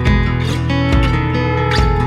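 Background music led by a strummed guitar, with a chord struck about once a second over sustained notes.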